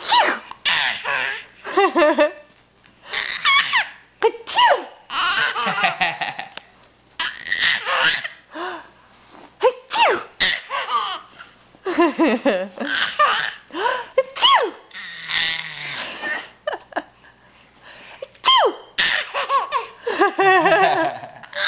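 A nine-month-old baby giggling in repeated bursts, laughing at adults' sneezes, with a sneeze now and then between the fits of giggles.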